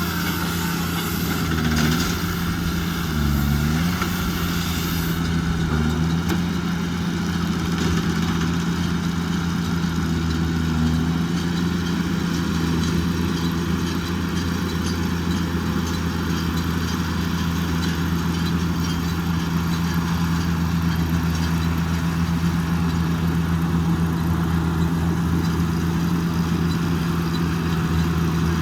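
Tractor engine running steadily under load while driving a baler-wrapper, with a constant mechanical hum. The engine note dips briefly several times in the first six seconds and once more around eleven seconds.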